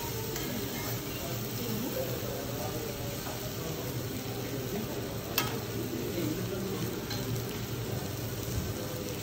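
Beef steak sizzling on a steel teppanyaki griddle, a steady frying hiss, with a single sharp click about five seconds in.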